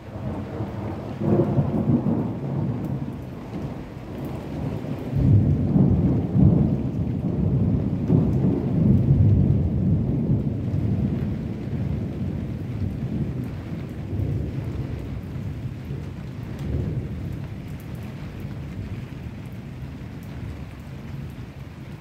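Thunder rolling through steady rain. The low rumble swells about a second in, grows loudest from about five seconds in, then slowly dies away as the rain continues.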